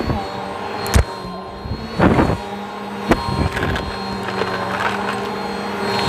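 Bissell bagless upright vacuum cleaner running steadily on carpet, its motor humming, with several sharp clicks and crackles as bits of debris are sucked up through the nozzle.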